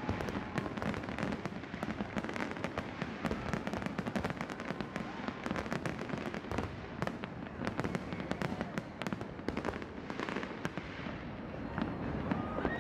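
Fireworks display bursting: a dense, irregular stream of sharp cracks and bangs that never lets up.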